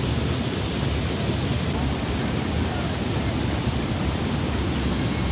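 Steady rushing of a small river pouring over low rock ledges in a cascade.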